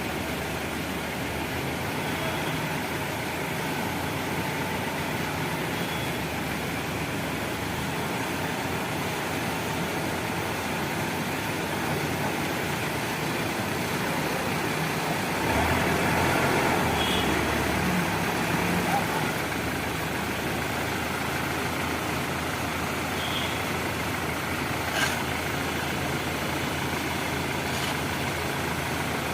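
Diesel engine of heavy working machinery running steadily. It gets louder for about three seconds just past the middle, and there is one short sharp click near the end.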